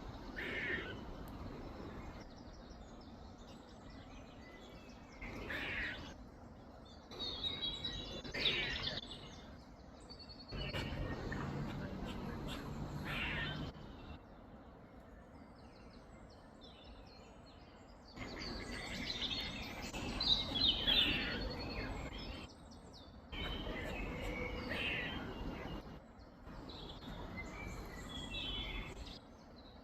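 Squirrel in a tree giving cat-like miaowing calls, a short call every few seconds.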